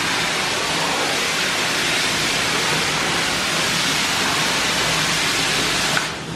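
Bath tap running hard into a bathtub full of bubble-bath foam, a steady rushing of water that whips up the bubbles. It cuts off suddenly near the end.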